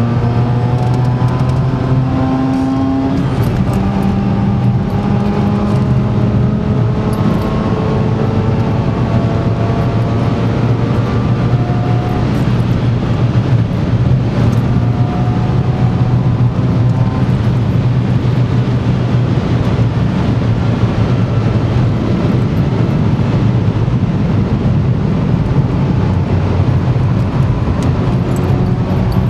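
Mazda RX-8's twin-rotor Renesis rotary engine pulling under load, heard from inside the cabin over steady tyre and wind noise. Its pitch climbs slowly in long pulls during the first half, then runs steadier.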